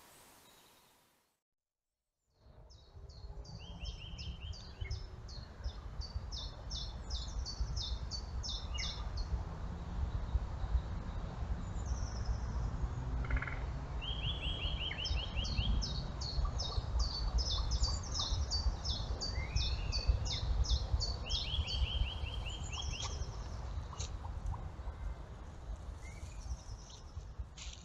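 Small songbirds singing: fast repeated high trills and chirps, over a steady low rumble. It starts about two seconds in, after a brief silence.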